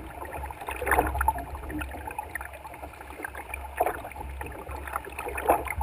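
Canoe paddle strokes in the water, a short swish every second or two, over a steady low rumble.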